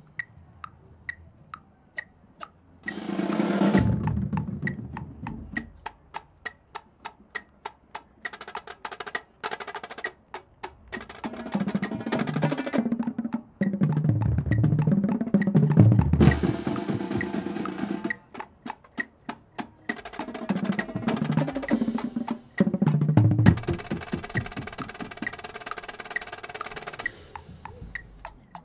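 Drumline battery of snare, tenor and bass drums playing show music with rolls and loud bass-drum swells, over a steady metronome click. The click ticks alone for the first few seconds, and the drums drop out briefly about two-thirds of the way through.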